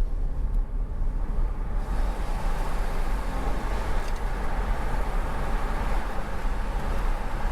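Car driving on a paved road: a steady low rumble of engine and tyres with road hiss, the hiss growing louder about two seconds in.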